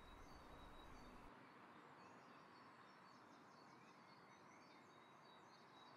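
Near silence: faint room tone with a few faint, high bird chirps in the background.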